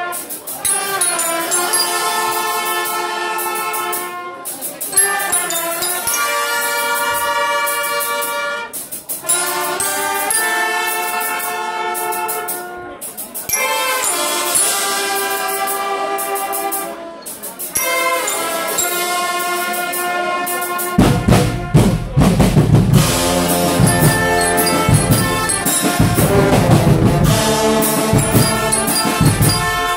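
Guggenmusik band playing: trumpets and trombones sound held chords in phrases with short breaks. About two-thirds of the way through, the drum kit and bass drum come in with a loud, heavy beat under the brass.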